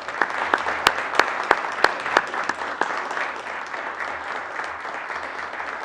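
Applause from the members of the legislative chamber, a dense steady clapping with a handful of loud sharp smacks in the first couple of seconds, easing off slightly near the end.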